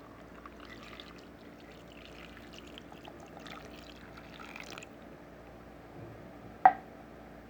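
Water being poured into a cooking pot, a faint uneven splashing for about five seconds, followed by a single sharp knock near the end.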